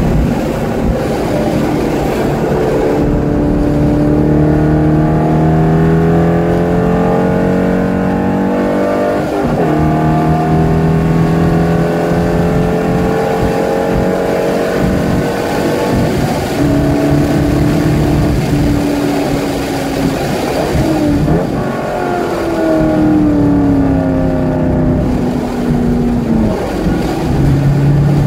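Chevrolet Corvette C5's 5.7-litre V8, heard from inside the cabin at full throttle on track: its pitch climbs and breaks at upshifts, then falls steadily as the car slows for a corner, and climbs again near the end.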